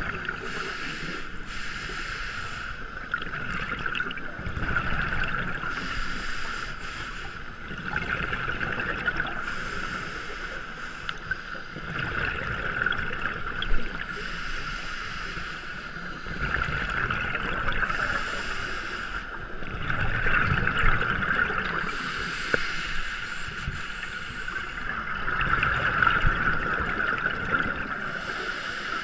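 Scuba diver breathing through a regulator underwater: each exhalation sends out a gurgling rush of bubbles, swelling about every four seconds over a steady hiss.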